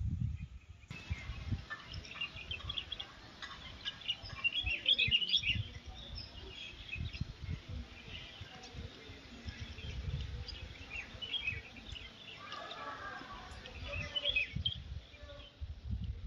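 Small birds chirping, many short high calls overlapping, starting about a second in. Irregular low rumbling runs underneath.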